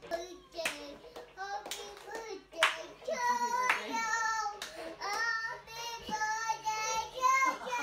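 A young girl singing a held, wavering melody, with several sharp hand claps between her phrases.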